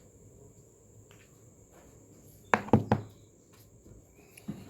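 Three or four quick knocks about two and a half seconds in, then one softer knock near the end, as small clock parts are handled and set on a hard surface, over a faint steady high-pitched tone.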